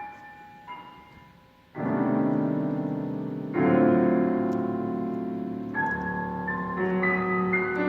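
Solo piano: a few soft high notes, then a loud chord struck about two seconds in and a louder one about a second and a half later, each left ringing, followed by quieter high notes played one after another near the end.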